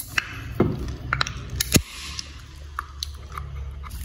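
A beer can's ring-pull cracked open, then a person chewing and biting on chicken feet, with a string of short sharp clicks, the loudest a little under two seconds in.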